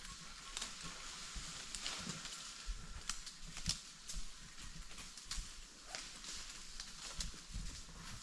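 Irregular snaps and crackles of twigs and leaves in forest undergrowth, over a steady faint high hiss.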